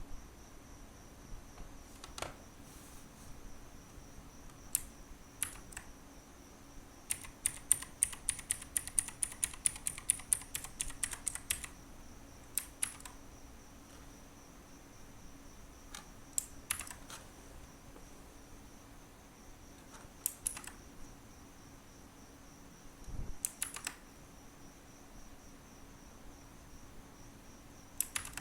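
Ruyiniao K26 mechanical keyboard with blue clicky switches being typed on. Keys are pressed singly and in small groups, with a fast run of keystrokes from about seven to twelve seconds in.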